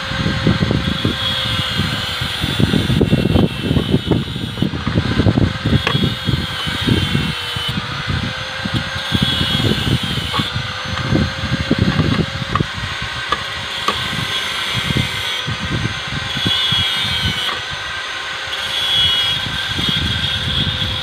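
Wind buffeting the microphone in irregular gusts, with a few light metallic clicks as steel rebar is bent into stirrups on a nail jig with a bending lever. A faint steady high tone and intermittent faint chirping sit in the background.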